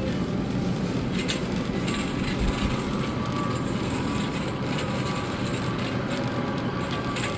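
Shopping cart rolling over a supermarket floor: a steady rumble and rattle with a few sharp clicks.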